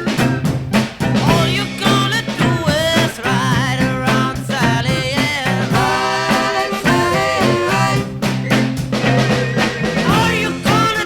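1960s amateur beat band playing a song, recorded in a single take with no added reverb: a steady bass and drum beat under a bending melody line.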